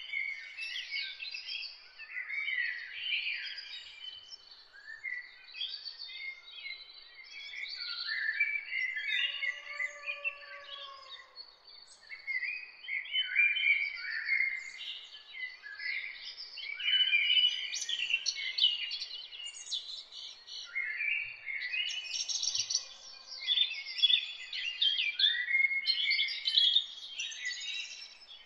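Many small birds chirping in quick, overlapping calls, with a faint steady high tone beneath them.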